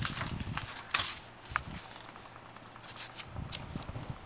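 Soft rustling and clicking of picture-book pages being handled, with small knocks from movement and one short high squeak about a second and a half in.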